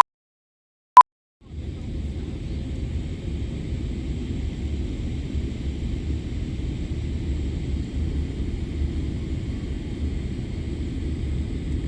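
A short beep about a second in, then from about a second and a half in the steady low rumble of an airliner during its landing approach.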